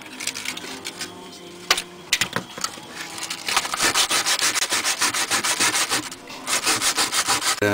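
Hand sanding of a small homemade lockpick: quick back-and-forth rubbing strokes that pick up about halfway through and stop just before the end, after a few scattered scrapes and a sharp knock.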